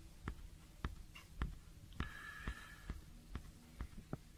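Faint, irregular clicks and taps of a hand handling a plastic-and-rubber telescope eyepiece, about one every half second.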